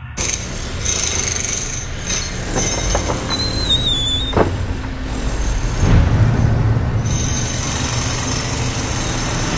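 Train passing: a loud, steady rumbling noise, with a brief high-pitched tone about three seconds in.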